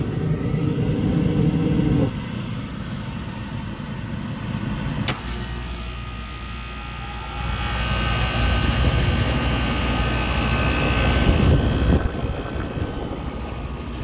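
Trane package unit running under test: a motor hum cuts off about two seconds in, a sharp click comes about five seconds in as a lower hum starts, and fan and machine noise builds from around seven seconds and eases near twelve seconds.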